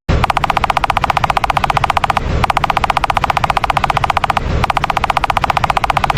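Rapid, even rattle like machine-gun fire, more than ten clicks a second, in three bursts of about two seconds each separated by short breaks.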